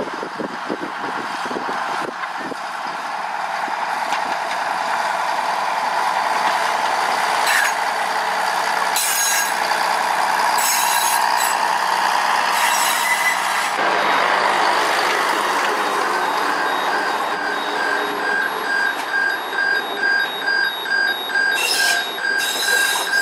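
Sugar cane train running past with a steady rolling noise that builds over the first several seconds, with a few short hisses in the middle. In the last five seconds an electronic warning beep repeats about one and a half times a second.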